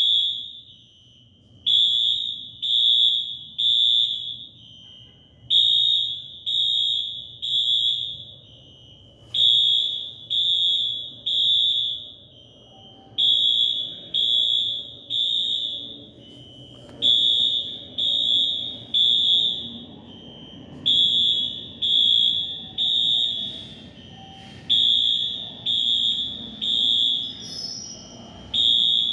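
Station fire alarm sounding the temporal-three evacuation pattern: three loud, high beeps about a second apart, then a pause, repeating about every four seconds.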